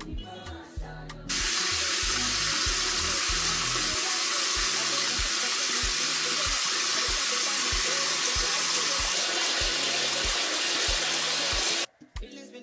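Bathroom sink tap running in a steady full stream, starting about a second in and cutting off suddenly near the end.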